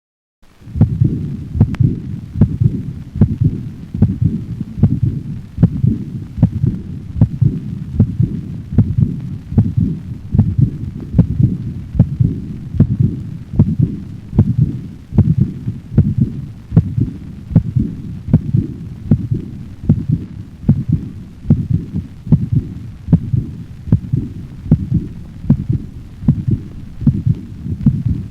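A dog's heart sounds from a stethoscope teaching recording: a regular beat about once a second, with a steady low hum between the beats.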